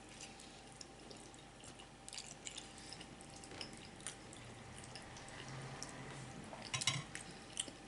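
Faint scattered clicks and small smacks of a person eating spaghetti, a little cluster of them near the end, over a faint steady hum.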